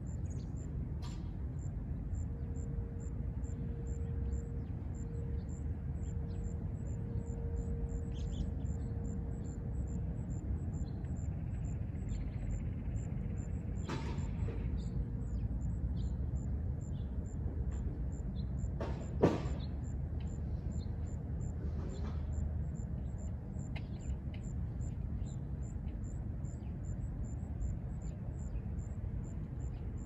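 Outdoor ambience with a steady low rumble and a faint, distant outdoor warning siren holding a steady tone, which fades out about halfway through. A faint high ticking repeats a few times a second, and a single sharp knock comes about two-thirds of the way in.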